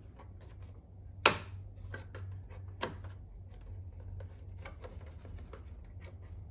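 Small clicks and taps of a pick working spring retaining clips off the back of a plastic vehicle emblem. There is a sharp click about a second in, a smaller one near three seconds, and light ticking in between, over a low steady hum.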